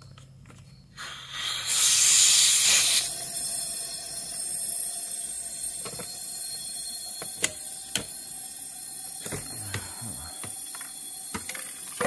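Compressed air hissing loudly and steadily, starting about a second in, as an engine cylinder is pressurized through its spark plug hole to test for a cylinder-to-cylinder leak, a sign of a blown head gasket. A faint steady whistle joins it, along with a few light clicks.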